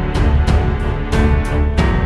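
Background music with a steady, fast percussive beat over sustained pitched tones.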